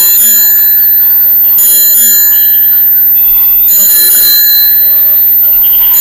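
Battery-powered toy bicycle's electronic sound playing a bicycle-bell ring over a tinny jingle, with the ring coming three times, about every two seconds.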